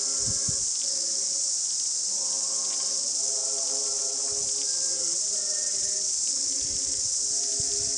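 A steady, high, hissing chorus of cicadas, with a choir singing held chords more faintly beneath it, the chords changing every second or so.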